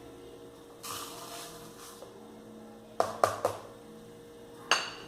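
Dry flocão de milho (flaked corn meal) poured from a cup into a bowl with a soft hiss lasting about a second, followed by a few sharp knocks of the cup tapped against the bowl to empty it.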